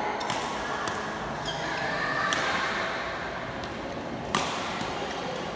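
Badminton rackets striking the shuttlecock during a doubles rally: a series of sharp hits about a second apart, the loudest about four seconds in, over faint background voices.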